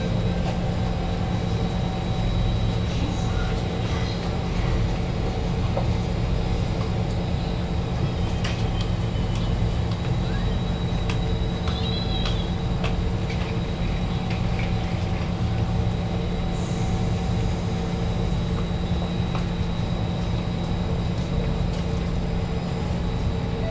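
Steady hum inside a stationary Kawasaki Heavy Industries C151 train car with its doors open, its onboard equipment and ventilation running, with scattered faint clicks and footsteps.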